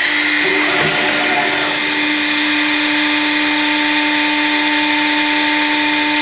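Cup hinge boring and routing machine running, its spindle motors giving a steady whine of several fixed tones over a loud hiss, with a brief rougher cutting noise about a second in.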